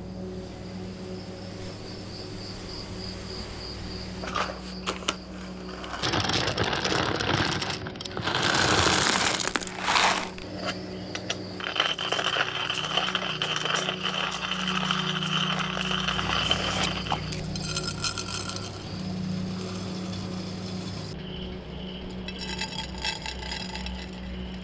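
Hand-cranked stainless-steel coffee grinder grinding coffee beans, a steady gritty, ratcheting run from about twelve to seventeen seconds in. Before it come loud bursts of clatter and scraping.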